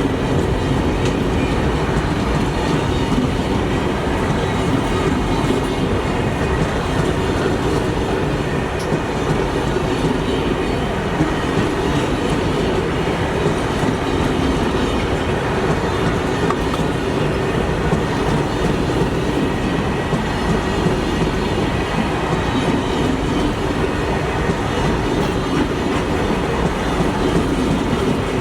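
Indian Railways train running on the track: a steady rumble of wheels and coaches that holds at one level throughout.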